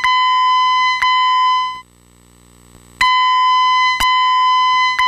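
Fire alarm voice-evacuation speaker sounding a steady electronic alert tone of about 1 kHz in a repeating evacuation pattern. Pulses of about a second run together in groups of three. The tone breaks off for about a second a little under two seconds in, then another group starts.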